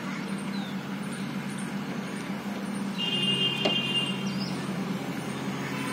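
Steady rumble of distant road traffic in an open park, with a few short, faint chirps. About three seconds in there is a brief high, steady tone lasting under a second.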